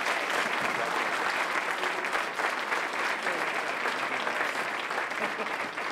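Audience applauding: many hands clapping in a steady, dense run that eases slightly near the end.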